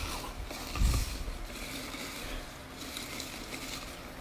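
Paper raffle coupons rustling and scraping as a hand rummages through them inside a wooden box, with a dull bump about a second in.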